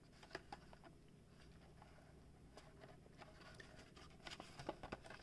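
Near silence with faint clicks and taps of a plastic blister-pack toy card being handled in the hands, a little busier near the end.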